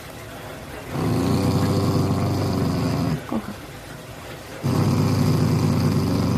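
Shiba Inu growling twice, two long steady growls with a short break between them, while its cheeks are held and its teeth are bared.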